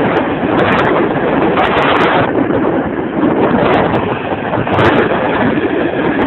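Wind rushing over the microphone on a moving Vespa scooter, with the scooter's engine and road noise running steadily beneath it.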